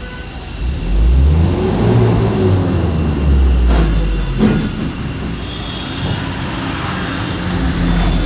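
Vehicle engine running and revving, heard from inside the moving vehicle, with a low rumble, a rise and fall in engine pitch about two seconds in and two sharp knocks near the middle.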